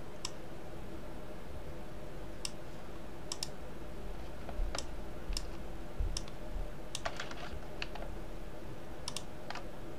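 Computer keyboard keys and mouse buttons clicking, about a dozen single clicks at irregular intervals.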